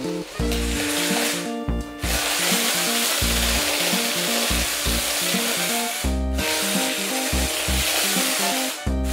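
Background music with a repeating bass line under a loud, steady hiss-like wash, which drops out briefly about six seconds in.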